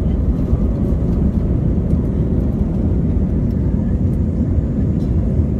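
Airbus A320 engines at takeoff thrust heard from inside the cabin during the takeoff roll and liftoff: a loud, steady, deep rumble.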